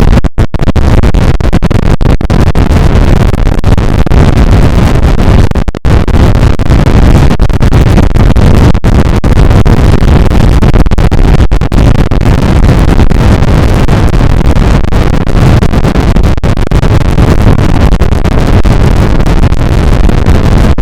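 A sneeze sample run through stacked Image-Line Vocodex vocoder effects until it becomes a constant, very loud, clipped wall of distorted noise. It cuts out briefly just after the start and again about six seconds in.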